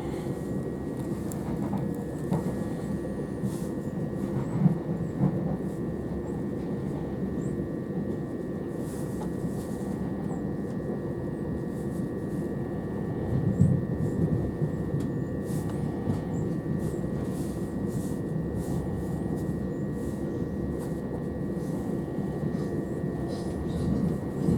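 Southern Class 377 Electrostar electric multiple unit heard from inside the carriage while running along the line: a steady rumble with a faint constant whine, and a couple of louder knocks about five and thirteen seconds in.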